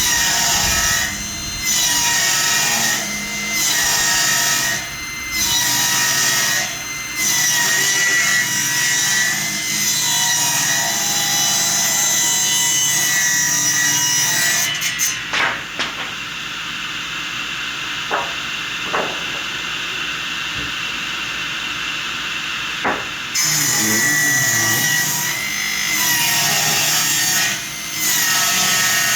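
Power saw cutting wood: a steady motor tone with loud cutting stretches that dip about every two seconds. Midway the cutting stops for several seconds while the saw keeps running more quietly, with a few knocks, before cutting resumes.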